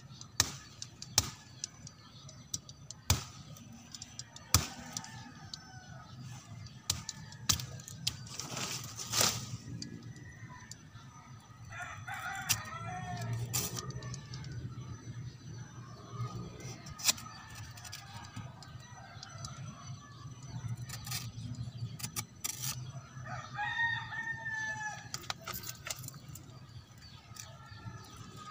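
A rooster crows twice, about twelve seconds in and again near the end. Sharp clicks and knocks come at intervals from knife work on a freshly cut papaya stem.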